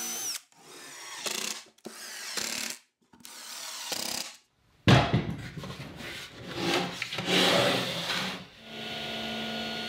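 A cordless drill running in short bursts, boring countersunk pilot holes in a plywood drawer, then a cordless driver driving screws into the plywood. Near the end comes a steady hum.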